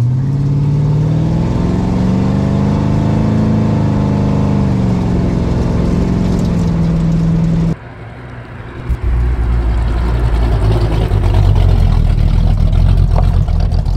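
Project Pontiac Firebird's engine pulling hard inside the cabin, its note rising for about four seconds and then levelling off at a steady cruise. After an abrupt cut, the car is heard from outside driving by with a deeper, louder rumble and a single thump.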